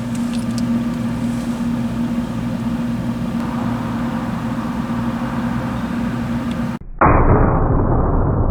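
Steady outdoor background noise with a faint low hum, then about seven seconds in a sudden switch to a loud, deep, drawn-out boom with no high end: a .45 ACP pistol shot played back in slow motion.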